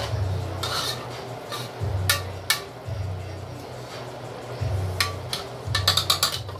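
Background music with a deep bass line that pulses on and off, with a few sharp clicks over it and a quick run of clicks near the end.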